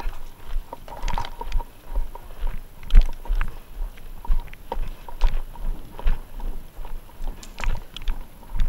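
Footsteps of a paintball player moving across turf, about two steps a second, with sharp knocks and rattles from the gear carried.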